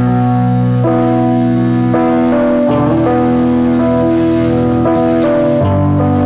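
Electronic keyboard playing held piano chords over a bass note, the chord changing about once a second, in an instrumental song intro.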